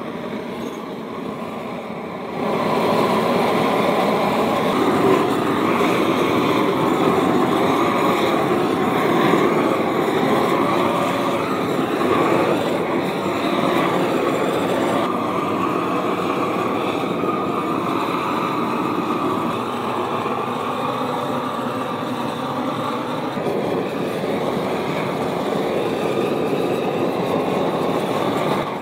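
Long-wand propane torch running with a steady rushing hiss as its flame chars dry wooden stair treads; it gets louder about two seconds in.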